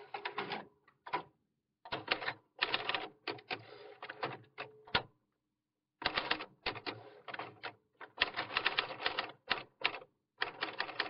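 Typewriter sound effect: rapid clattering keystrokes in bursts, broken by pauses of about a second, as if typing out lines of text.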